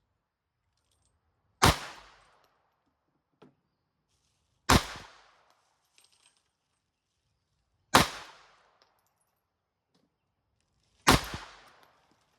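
Four .22 LR pistol shots from a Ruger 22/45 Lite semi-automatic firing Remington Golden Bullet rounds, one about every three seconds, each a sharp crack with a short echo.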